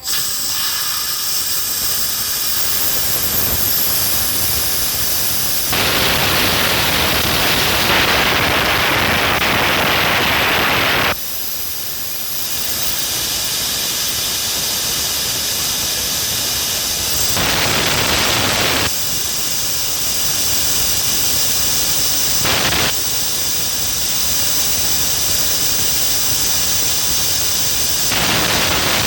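SWAN 1 HP air compressor driven by an electric motor, starting suddenly and then running steadily. Loud bursts of air hissing come several times over it, the longest lasting about five seconds.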